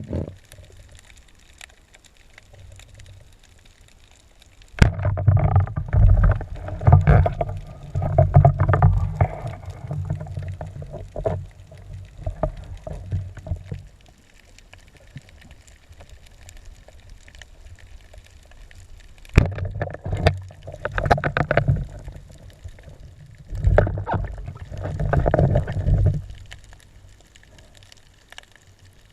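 Muffled splashing and bubbling of water in three bursts, the first lasting several seconds, with a quieter water hiss between them.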